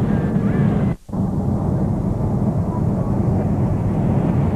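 Steady rumble of a Boeing 747-400's engines and airflow heard inside the passenger cabin during the landing. The sound drops out sharply for a split second about a second in.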